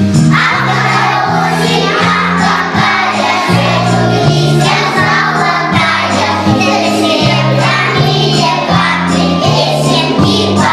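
A group of young children singing a song together over a musical accompaniment with a steady, regular bass line.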